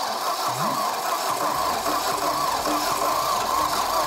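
Starter motor cranking a homemade inline-six built from two Lada four-cylinder engines. It turns the engine over steadily, but the engine doesn't fire, which the crew puts down to low compression from dry cylinder walls.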